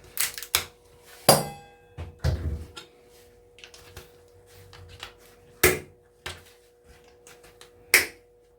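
About five sharp metallic knocks and clinks as old electrical plugs are broken apart for their brass pins, one clink ringing briefly, over a faint steady hum.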